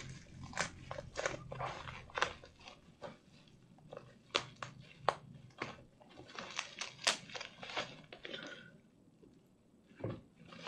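Cardboard earphone packaging being handled and opened: a run of irregular small crackles, taps and clicks that thins out about nine seconds in.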